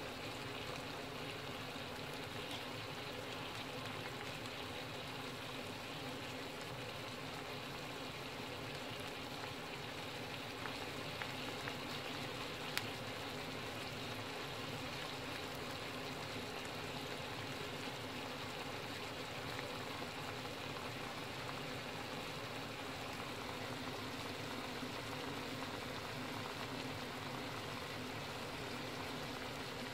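Food frying in a pan: a steady sizzle of hot oil with fine crackling, and a few slightly louder pops about eleven to thirteen seconds in.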